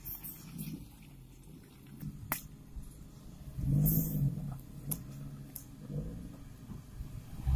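A vehicle engine running low and steady, revving up and back down once about four seconds in, with a few faint clicks.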